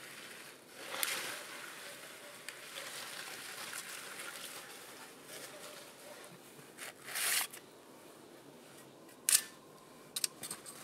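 Boots crunching through snow, then a sharp metallic click with a brief ring, followed by a couple of quicker clicks near the end: a folding saw's blade being swung open and locked.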